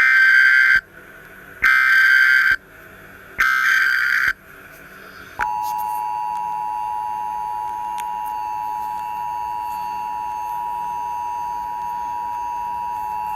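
Emergency Alert System (EAS) test signal. Three short, harsh bursts of digital data screech (the SAME header), each just under a second long, are followed about a second later by the steady two-tone attention signal, a shrill dual tone held for the rest.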